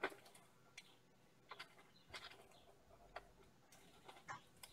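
A few faint, scattered clicks as a thin metal supporting rod is worked into the paper-covered rings of an artificial wasp nest.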